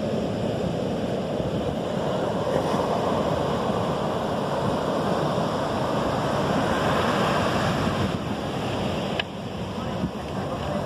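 Ocean surf breaking and washing up the beach, a steady rush of waves, with wind buffeting the microphone.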